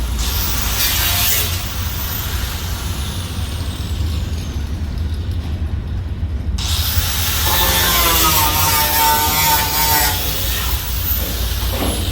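Power cutting tool running as it cuts through the rusted sheet-metal quarter panel of a 1973 Camaro. It eases off for a couple of seconds midway, then cuts back in with a wavering whine.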